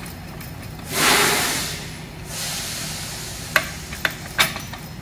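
Two bursts of air hissing as the pneumatic air cylinder is worked by hand, the first louder and about a second long. Then three sharp metal clicks as the clevis pin and cotter pin go into the cylinder's back mount.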